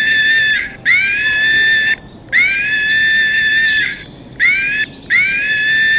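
Monkey screeching: a run of high-pitched calls, each about a second long, with short breaks between them.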